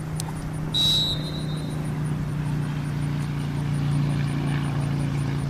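A steady low engine drone that slowly grows louder, with a short, shrill whistle blast about a second in.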